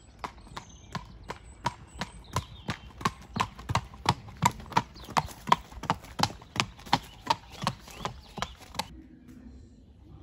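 A young horse's hooves clip-clopping on a hard gravel lane, first at a walk and then quickening into a trot. The sharp hoof strikes stop about nine seconds in.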